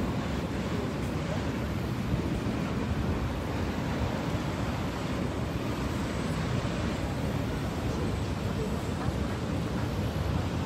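Steady roar of Niagara's Horseshoe Falls: an even, low rumble of heavy falling water that holds at the same level throughout.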